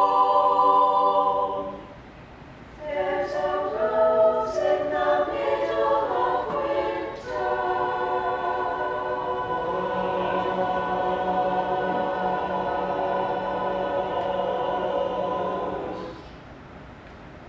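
Mixed choir singing a cappella: a held chord breaks off, and after a short pause the voices move through a phrase before settling on a long sustained chord, released about a second and a half before the end.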